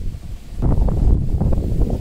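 Wind buffeting the microphone, a heavy uneven rumble that briefly drops away about half a second in and then returns.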